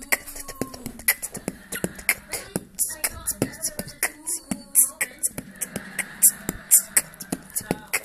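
A Fischer's lovebird making rapid, irregular clicks mixed with short high chirps and squeaks, several a second.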